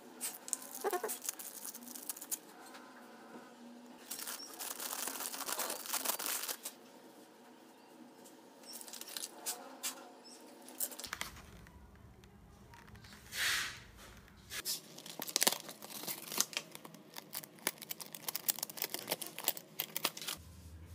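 Hands handling a sketching pencil set: irregular rustling and crinkling with scattered sharp clicks and taps as the cutter knife, pencils and pencil tin are picked up and moved.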